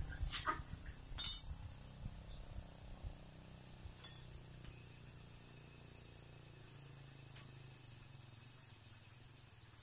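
Three sharp metallic clinks as a steel spanner and the parts of a disassembled PCP high-pressure hand pump are handled, the loudest a little over a second in.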